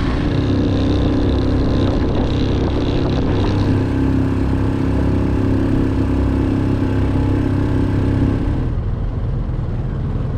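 Small outboard motor on a dinghy running steadily at a constant speed. Its engine note stops about nine seconds in, leaving a low rumble.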